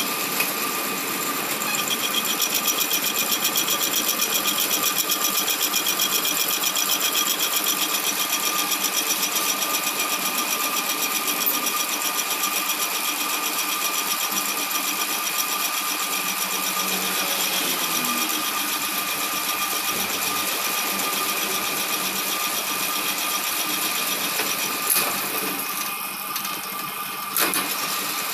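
Metal lathe running while a boring bar bores out the inside of a new bush, enlarging it 0.5 mm to fit a reground submersible motor rotor: a steady machine sound with a fast, even pulsing. A couple of sharp knocks come near the end.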